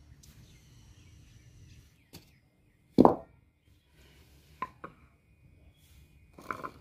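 A heavy wooden block set down on a floor with one loud thump, followed a second and a half later by two light wooden knocks as a round wooden disc is laid on it, and a brief scuff near the end.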